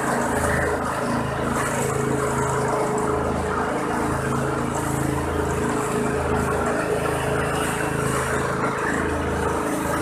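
Organic waste shredder running steadily, its motor humming evenly while vegetable and grass waste is fed in to be chopped.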